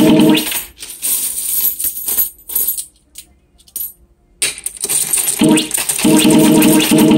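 Sengoku Otome pachislot machine on auto-play, sounding its electronic music and game effects. The music breaks off about a second in for a few seconds of short clicks and jingles, then starts again.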